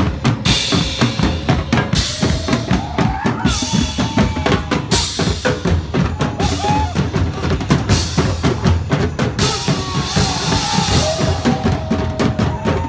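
Loud drum-heavy music with a fast, steady beat and recurring stretches of cymbals.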